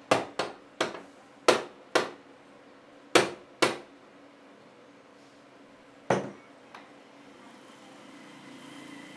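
Eight sharp wooden knocks, mostly in quick pairs, as a square wood blank is struck to seat it between the centres of a wood lathe. Near the end a faint hum rises as the lathe's motor starts up.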